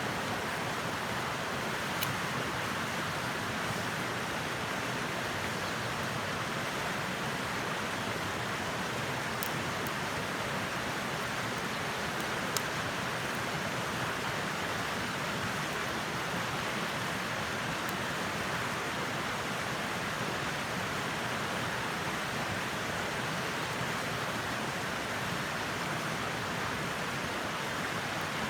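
Wood fire burning in a lidded BBQ stove: a steady rushing hiss with a handful of sharp, scattered pops from the burning wood.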